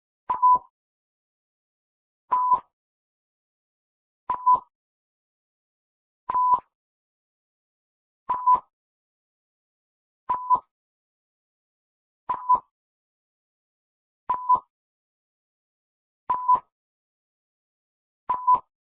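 A short electronic beep at one steady pitch, repeated every two seconds, ten times, with silence between the beeps.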